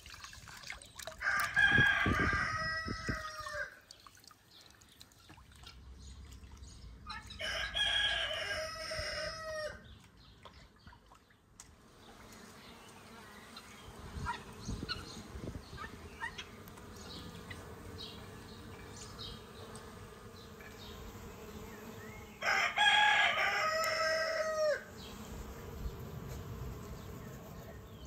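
A rooster crowing three times, each crow about two seconds long and ending on a lower drawn-out note.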